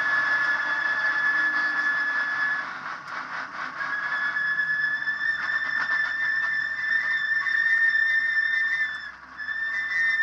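A steady high-pitched whine inside the cabin of an Abarth Punto S2000 rally car. It cuts out briefly a little after two seconds in and again near the end, with light rattles and clicks over it.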